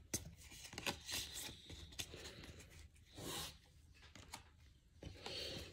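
Faint handling of 2024 Topps baseball cards: a few light clicks and taps as cards are slid and flipped, with a longer soft rub about three seconds in and another near the end.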